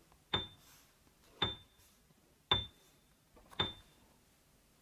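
A short ticking sound effect marking the child's turn to speak: a sharp click with a brief high, glassy ring, four times, evenly spaced about a second apart.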